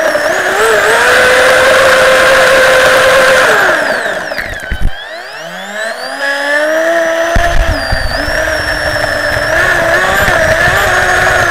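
The electric drive motor of an HK Podracer RC hydroplane whines at speed, recorded onboard, with water spray rushing past. About three and a half seconds in, the whine falls in pitch as the boat slows, and there is one sharp knock. The whine then climbs back to full speed about seven seconds in.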